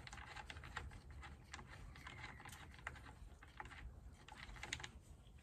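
Faint, irregular small clicks and taps of hands fitting a red battery cable's terminal and its small hardware onto a fuse holder.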